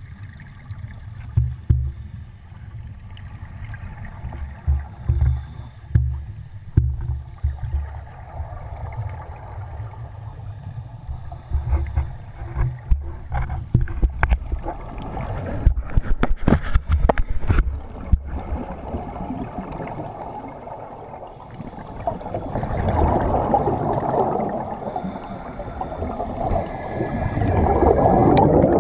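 Underwater scuba-diving sounds: a diver's exhaled bubbles gurgling out in swelling bursts, the loudest near the end, with low thumps in the first half and a cluster of sharp clicks and knocks about halfway through.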